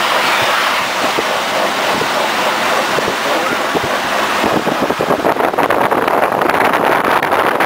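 Wind rushing over the microphone of a moving car, with tyre hiss on a wet road beneath it. About halfway through the wind turns rough and choppy, buffeting the microphone.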